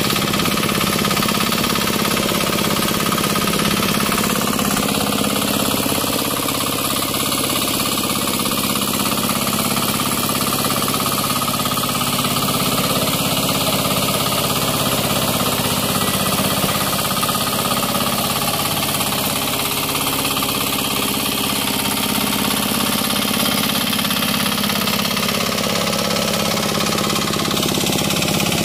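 Engine of a walk-behind 'turtle tiller' hand tractor running steadily under load as it pulls its cage wheels and tiller through a flooded, muddy rice paddy.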